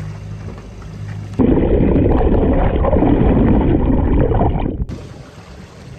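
Water sloshing and gurgling, heard muffled through an underwater action-camera housing, starting suddenly about a second and a half in and stopping about three and a half seconds later. Before it there is a low steady hum.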